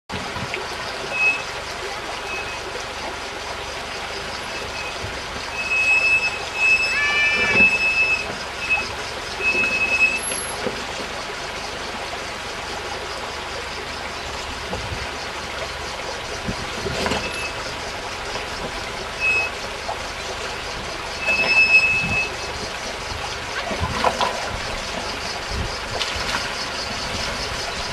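Land Rover Defender 110 crawling slowly down rocky stone steps, its engine running low under a steady background, with occasional knocks and clunks from the tyres and suspension dropping over the rock. A few short, high squeals recur along the way.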